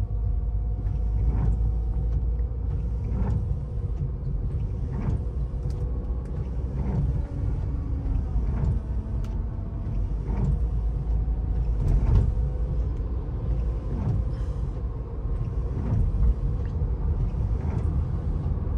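Chevrolet Cruze gearbox whining while the car drives at low speed, heard from inside the car over steady road rumble, the whine's tones drifting slightly in pitch, with a few light knocks. The whine shows at low speed and goes away at high speed: the mechanic puts it down to a broken plastic piece inside the gearbox that catches oil for the chain, so the chain is not getting oil.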